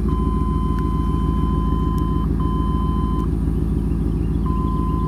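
A 1998 Chevrolet pickup's 5.7 L Vortec V8 idling steadily, with a high electronic beep over it: one long beep of about two seconds, a shorter one, and another starting near the end.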